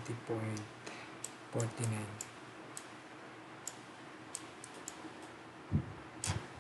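Computer mouse clicking, single clicks spaced roughly a second apart as digits are drawn stroke by stroke. A soft murmured voice comes in briefly twice early on, and two dull knocks come near the end.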